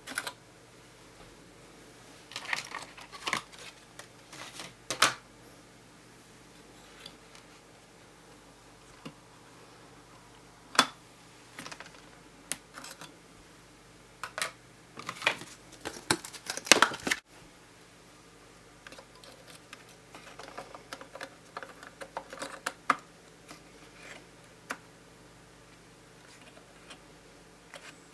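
Laptop RAM modules and plastic parts being handled by hand: scattered sharp clicks and short plastic rattles, with a dense run of louder clicks about two thirds of the way through.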